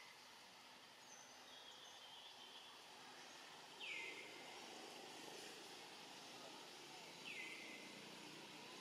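Faint outdoor ambience with a bird calling twice, about three and a half seconds apart. Each call is a quick downward sweep that levels off into a held whistle about a second long. A few fainter, higher chirps come between them.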